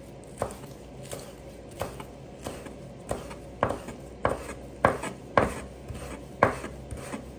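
Chef's knife chopping spring onions on a wooden cutting board: steady, evenly spaced knocks of the blade against the board, about one and a half a second.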